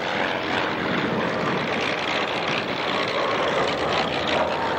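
Messerschmitt Bf 109G's Daimler-Benz DB 605 inverted V12 engine and propeller running at display power as the fighter flies past, a steady dense rushing noise with a faint tone slowly dropping in pitch near the end.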